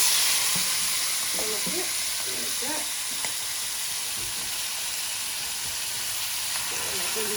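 Food frying in hot oil in a pan: a loud steady sizzle that eases off slightly over the seconds.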